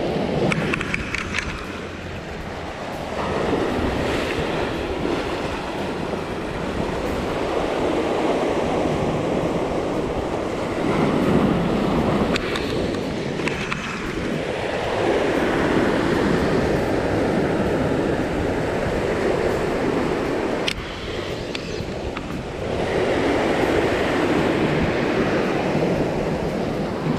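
Sea waves washing and surging against shoreline rocks, swelling and falling away every few seconds, with wind buffeting the microphone and an occasional sharp click.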